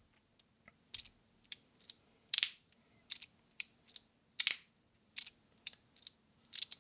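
3D-printed magnetic fidget slider being worked back and forth, its plates snapping from side to side with about a dozen short, sharp clicks, roughly two a second.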